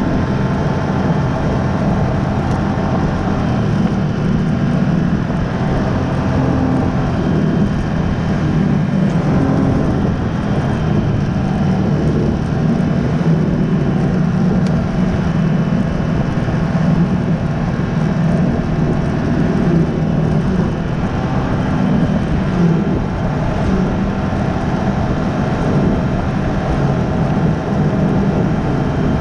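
Snowmobile engine running steadily at cruising speed, heard from the rider's seat, with the hum of the track on groomed snow.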